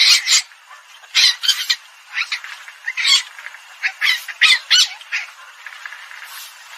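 Asian palm civet calls played from a hunting decoy recording: short, harsh, high-pitched calls repeated in quick clusters, pausing for about a second and a half near the end.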